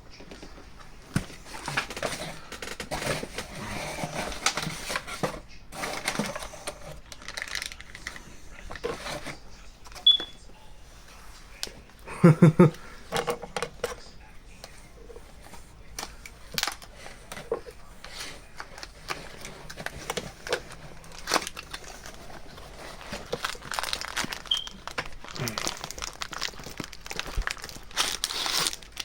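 Plastic packaging crinkling and rustling with scattered clicks as a paracord bracelet is unwrapped by hand. There is one brief, louder low sound about twelve seconds in.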